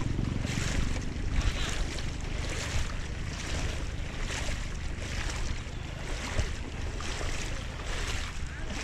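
Fast-flowing floodwater rushing across a road, with a regular slosh about every three-quarters of a second as someone wades forward through it, and wind buffeting the microphone.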